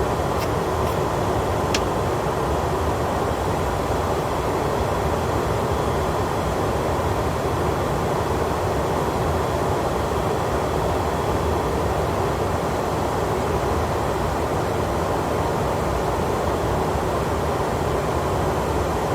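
Steady rush of Airbus A330 flight-deck noise in descent, with two faint clicks in the first two seconds.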